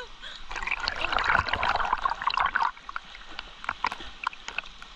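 River water splashing and sloshing as someone swims through it close by: a dense patch of splashing for about two seconds that breaks off suddenly, then scattered drips and small splashes.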